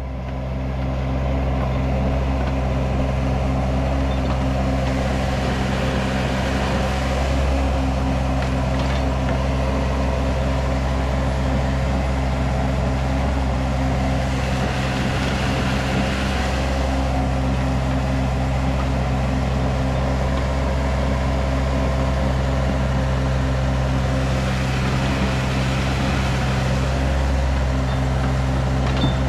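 Diesel engine of a 6,000 lb mini excavator running steadily under load while the machine digs, with louder, hissier stretches about every ten seconds as the hydraulics work.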